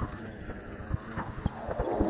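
Low, pulsating drone of a surveillance plane flying back and forth overhead, with scattered sharp clicks and knocks over it.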